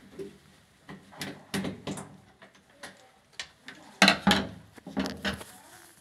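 Irregular clicks and knocks of a screwdriver and gloved hands working at a washing machine's top panel, with the loudest pair of knocks about four seconds in.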